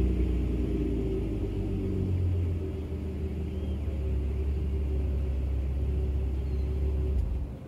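A 2007 Ford Taurus SE's 3.0-litre V6 idling through a full header-back Insynerator exhaust with a deep, steady exhaust note, then shut off near the end.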